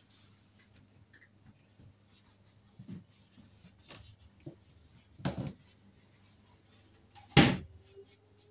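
A foam mattress being set down into a wooden baby cot and pressed flat: a few light knocks, then two dull thuds, the second and louder near the end, as it settles onto the cot's base.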